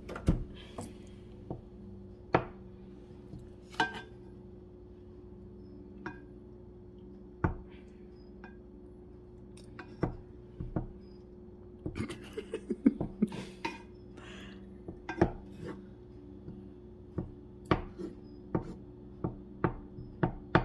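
Kitchen utensil knocking and tapping against a small cooking pot as melting butter is checked and stirred: scattered single knocks, a busy cluster in the middle and a quicker run of taps near the end, over a steady low hum.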